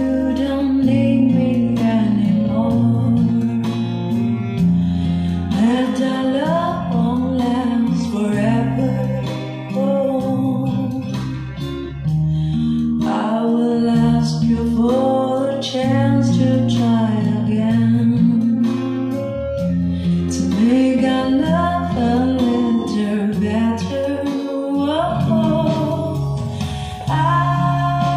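A song with a singing voice over guitar and bass, played back through a Sansui AU-666 integrated amplifier into large JBL loudspeakers and heard in the room.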